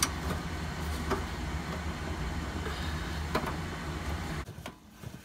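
A steady low mechanical hum, like a motor running, that cuts off suddenly near the end, with a couple of faint knocks from handling the pipe.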